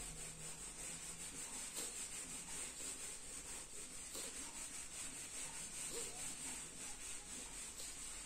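Whiteboard eraser rubbing marker off a whiteboard in repeated wiping strokes.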